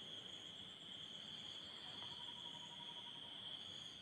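Faint, steady high-pitched trill of insects calling, with a quieter pulsing chirp above it.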